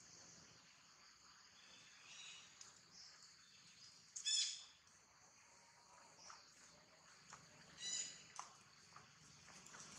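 Macaque monkey giving two short, high-pitched squeals, the louder about four seconds in and a shorter one about eight seconds in, over a faint steady insect hiss.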